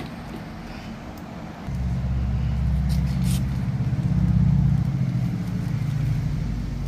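A motor vehicle's engine running nearby, coming in about two seconds in as a low steady hum that grows louder toward the middle and stays on.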